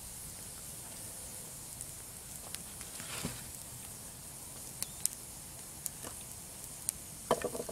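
Wood campfire crackling: scattered sharp pops and snaps over a faint steady hiss, with a brief rush of noise about three seconds in and a quick cluster of snaps near the end.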